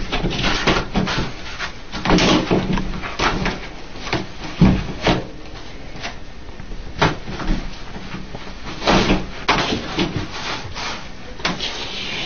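Toilet paper being clawed and torn off a wall-mounted roll by a cat: irregular bursts of rustling and ripping paper, with the roll shaken on its holder.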